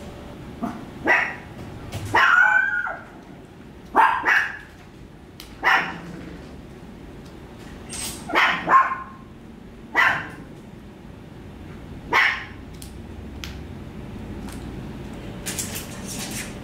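A small puppy gnawing and biting at a dried turkey chew held in a hand: about eight short, sharp sounds spaced a second or two apart, a few with a brief pitched tone.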